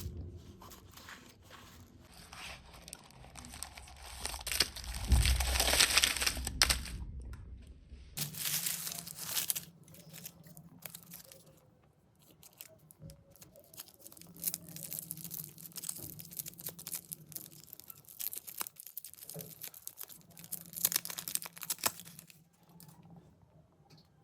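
Candy bar wrappers being torn open and crinkled by hand: a run of crackling rustles, loudest about four to seven seconds in and again near the end, with quieter stretches between.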